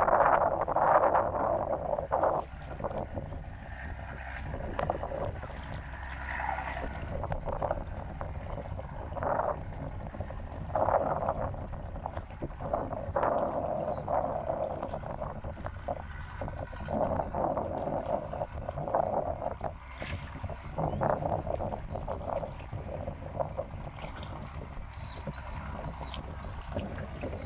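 Waterside ambience: water lapping and splashing in irregular swells over a constant low rumble, with a few faint high bird chirps near the end.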